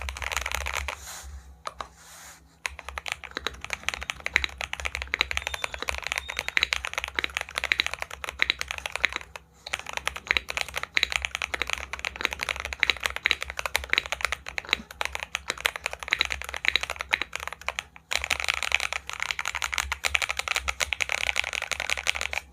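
Mechanical keyboard being typed on quickly, a dense string of deep, clacky keystrokes. The typing stops briefly about 2 s in, again around 9.5 s and again near 18 s.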